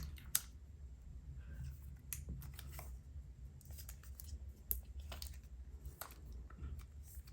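Faint, scattered clicks and taps of a glass back panel being handled and pressed into place on a Samsung Galaxy S10 smartphone, over a low steady hum.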